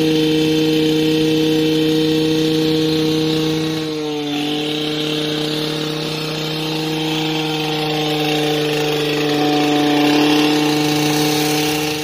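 A small engine running steadily at constant speed, the test noise measured at 78 dB over the recycled-rubber noise wall. Its pitch drops slightly about four seconds in.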